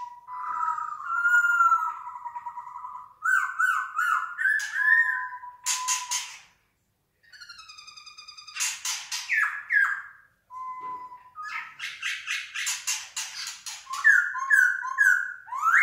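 Caged songbirds singing a varied song of whistled notes, sliding calls, fast trills and harsh rapid chatter, broken by short pauses about seven and ten seconds in.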